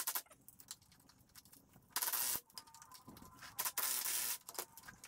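Two short bursts of metal hand-tool noise, each about half a second, as a bolt extractor works a seized, rusted anti-roll bar bolt on a BMW E36 rear subframe.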